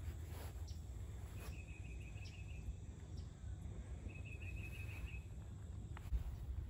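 Outdoor ambience: a short, buzzy trilling call from an insect or songbird, heard twice, each about a second long and about three seconds apart, over a steady low rumble.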